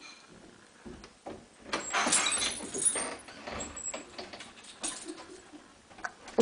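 Small dog scratching and pawing at a wooden door with its front claws, in irregular bursts, loudest about two to three seconds in.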